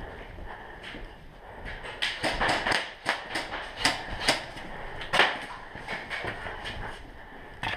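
Irregular sharp clicks and knocks, about a dozen spread over several seconds, in the middle of an indoor airsoft pistol game: shots and BB hits mixed with the knocks of movement through a plywood-walled arena.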